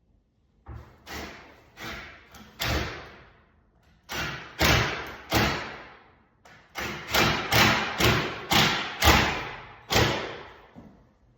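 A series of sharp knocks, about fifteen in three runs, each ringing out briefly. The third run is the loudest and most even, about two knocks a second.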